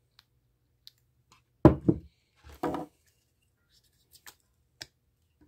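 Small plastic clicks and knocks from handling a car-audio tweeter and its wire against the speaker, with two louder knocks a second apart near the middle.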